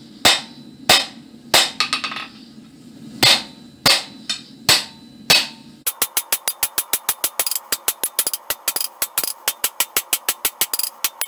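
Hand hammer striking red-hot iron on a steel anvil: separate ringing blows about every half second, then, after an abrupt change about halfway through, a fast even run of strikes at about six a second.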